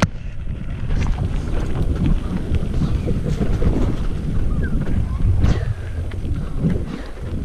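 Wind buffeting the microphone over the rumble and rattle of a mountain bike rolling over a dirt forest trail, with scattered knocks and clicks as the wheels hit roots and bumps.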